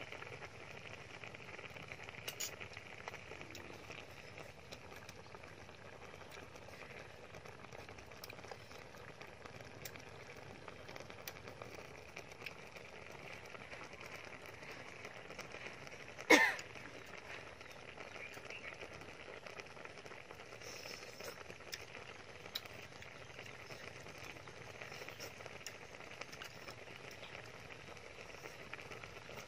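Quiet eating sounds of chopsticks and a spoon at a small glass bowl over a steady hiss, with one sharp click about halfway through, the loudest thing here.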